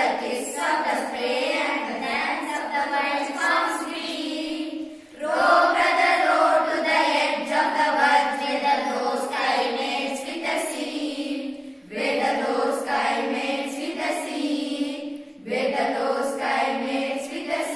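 A chorus of schoolgirls singing together in unison, in sung phrases broken by short pauses for breath.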